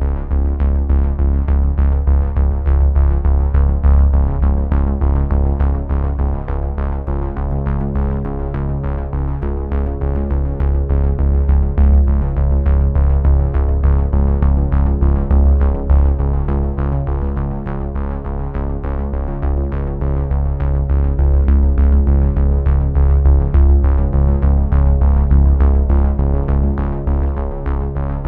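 Background music: an electronic synthesizer track with a strong bass and a steady beat.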